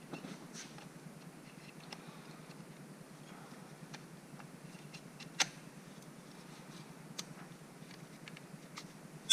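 Scattered light clicks and taps of hands working on a car's engine computer module and its unplugged plastic wiring connectors, with a sharper click about five seconds in and another at the very end.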